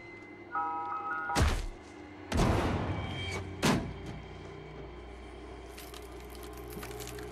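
Film sound design: a brief snatch of an ice cream truck's chime jingle, then three heavy thunks within about two seconds, the middle one a longer crash. A low music drone follows.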